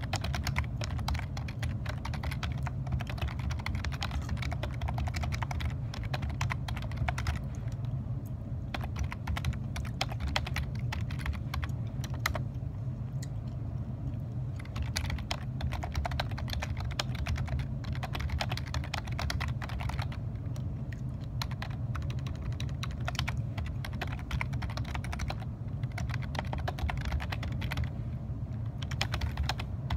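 Fast typing on a computer keyboard: a dense, irregular run of key clicks, thinning out briefly a few times, over a steady low hum.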